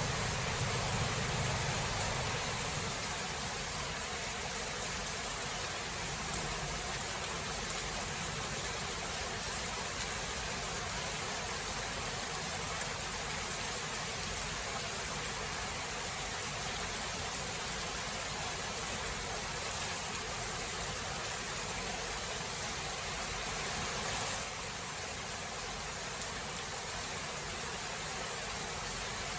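Steady rain hiss, with the low rumble of a thunderclap dying away in the first couple of seconds.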